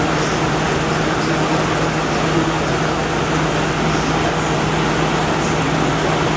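Window air conditioner running with its fan on high, really chugging: a steady rush of air over a constant low hum.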